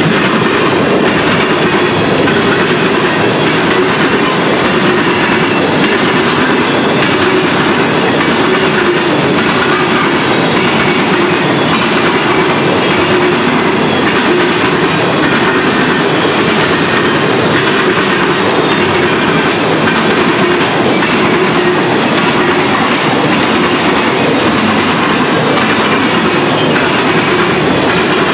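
Empty welded-rail train's steel-wheeled flatcars rolling past close by: a steady, loud rumble and clatter of wheels on the rails.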